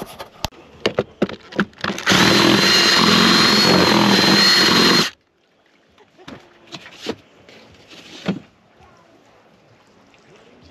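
A power drill runs for about three seconds, boring out a hole in the UTV's plastic dash panel, with a steady motor whine over the cutting noise. It stops suddenly and is followed by light clicks and knocks of handling.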